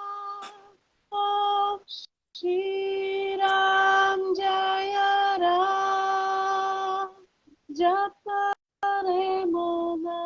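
A woman singing an Indian mantra to Rama unaccompanied, holding long, steady notes with short breaks for breath.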